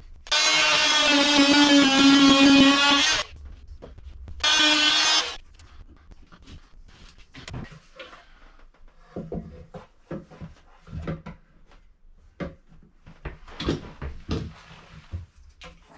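Oscillating multi-tool buzzing in two runs, about three seconds and then about one second, as it cuts at the edge of a drywall opening. After that come light knocks and rattles of a plastic washing machine outlet box being handled and pushed into the wall opening against the framing.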